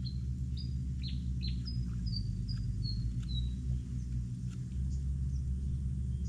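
A bird calling a series of about nine short, high chirps, each sliding slightly down, over the first three and a half seconds, with a steady low rumble underneath.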